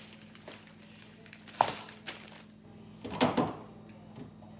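Food containers and packages being handled and set down in a refrigerator: a sharp clink about a second and a half in, then a short cluster of knocks and rattles around three seconds in, over a faint steady hum.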